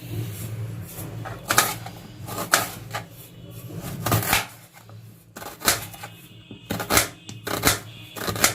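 Irregular light knocks and clicks of kitchen things being handled, about one a second, over a low steady hum.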